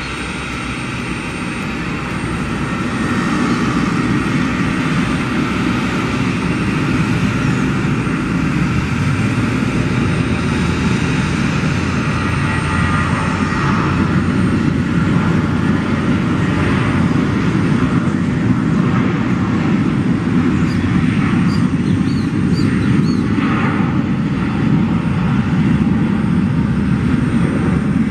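Jet engines of a LATAM Airbus A321 running on the runway: a loud, steady engine noise that swells over the first few seconds and then holds.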